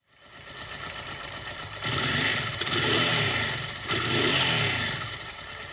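Honda Transalp XL600V's V-twin engine idling, then revved twice, about two seconds apart, the pitch rising and falling with each rev.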